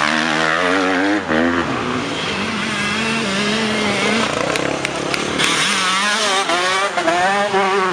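Motocross bikes racing through a dirt corner: one passes close in the first second and a half with its engine revving up and down, a steadier engine drone carries on between, and a second bike comes through revving hard from about five and a half seconds in.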